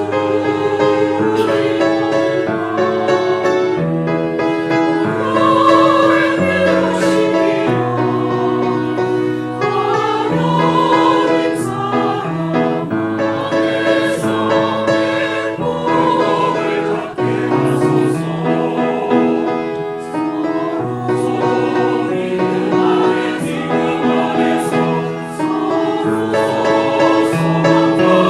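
Church choir singing a hymn in sustained phrases.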